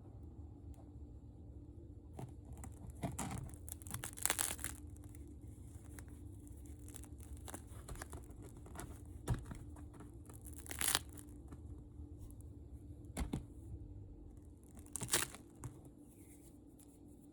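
Crisp crust of a sourdough loaf crackling and crunching: light crackling throughout, with about six louder sharp crunches a few seconds apart.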